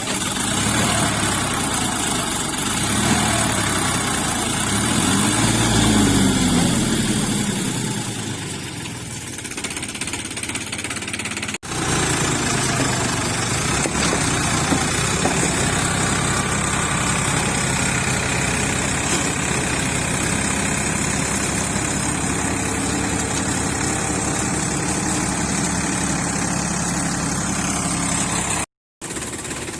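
Sonalika 45 HP tractor's diesel engine running; its pitch rises and falls over the first several seconds, then it runs steadily.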